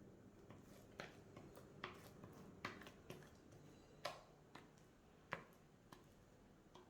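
Faint, irregular clicks and taps of a utensil against a mixing bowl as cake batter is poured and scraped out into a cake mould, about half a dozen sharper clicks among softer ones.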